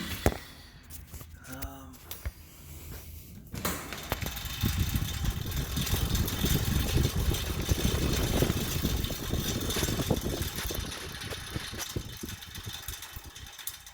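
Assault AirBike Classic turning over: the fan whooshes with a fast, dense rattle. It sets in about a third of the way in, is loudest in the middle and dies away near the end as the wheel slows. It is the rattle that gets louder with speed, with the chain not making contact.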